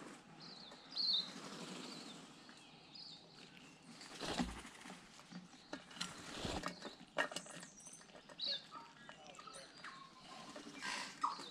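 Tui flying in to a feeder: two loud flurries of wingbeats about four and a half and six and a half seconds in, with short tui calls and clicks around them.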